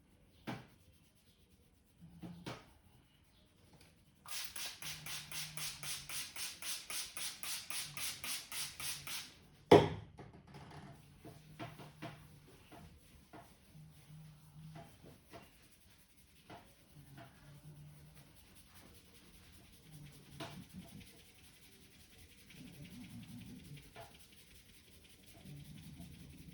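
Rapid rhythmic hand strokes of a barber's head massage, about four or five slaps a second for roughly five seconds. Then one loud sharp crack, followed by scattered lighter taps and rubbing.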